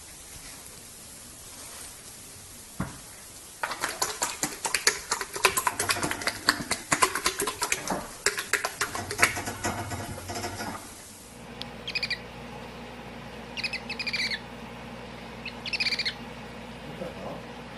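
A bird calling: a long stretch of rapid chattering, then three short calls a couple of seconds apart, each falling slightly in pitch.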